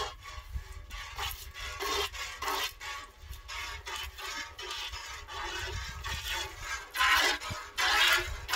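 Cow being milked by hand into a galvanised metal bucket: jets of milk hiss into the pail in a quick rhythm, about two squirts a second, louder near the end.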